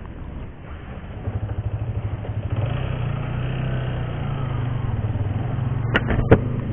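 Yamaha New Vixion Lightning's single-cylinder 150 cc four-stroke engine running at low revs as the motorcycle rolls off at walking pace. It gets louder about a second in. Two sharp clicks come close together near the end.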